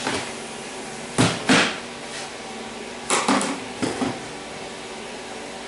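Hand tools knocking and clinking against a metal transmission case and steel workbench: five or so sharp metal knocks in short clusters, about a second in and again about three to four seconds in.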